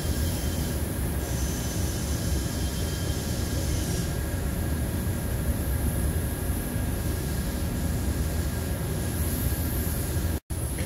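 Steady rushing of a paint spray booth's air flow, with the hiss of a paint spray gun starting and stopping as the trigger is pulled and released while satin paint is sprayed onto a steel chassis frame. The sound cuts out for an instant near the end.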